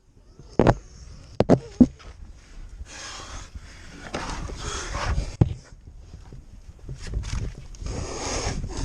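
A person breathing hard in noisy pants while climbing down over rock. Several sharp knocks and scrapes of boots and hands on stone come in the first two seconds and again about halfway through.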